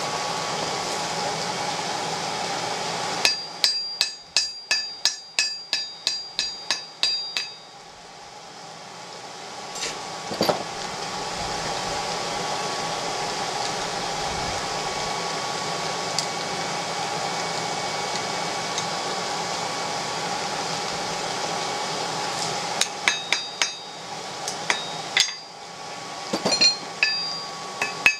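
Blacksmith's hammer striking hot iron on an anvil, drawing out round stock to a square point for a nail. A quick run of about a dozen ringing blows, roughly three a second, comes a few seconds in; after a long pause with only a steady hum, a second run of blows starts near the end.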